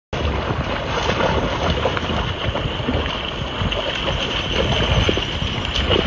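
Wind buffeting the microphone in a steady low rumble, with water splashing and sloshing as two dogs wade through a shallow pond.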